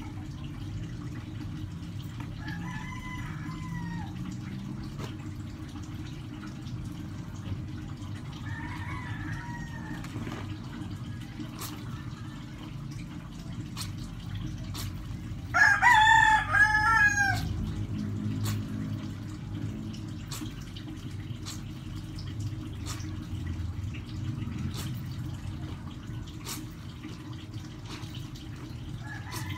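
A rooster crows loudly about halfway through, with two fainter crows earlier and another near the end. Underneath, water sloshes as clothes are washed and wrung by hand in a basin.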